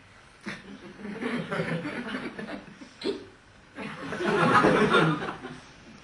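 Theatre audience laughing in two waves, each a couple of seconds long, the second one louder.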